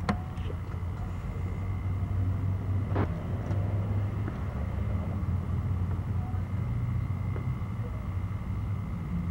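Low, steady outdoor rumble, with a single short click about three seconds in.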